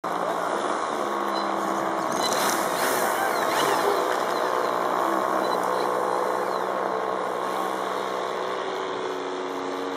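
Model airplane engine running steadily at idle, with a few faint voices in the background.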